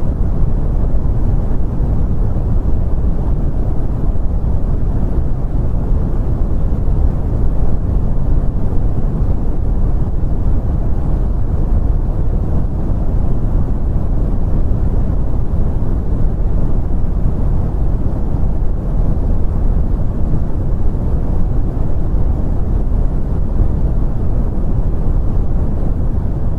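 Brown noise: a steady, deep rumbling hiss with most of its energy in the low end, dying away in the treble, unchanging throughout.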